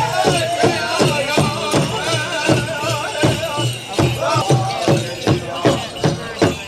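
Powwow drum group singing over a large hand drum struck in a steady beat, about three strokes a second, with high wavering voices over the drumbeat.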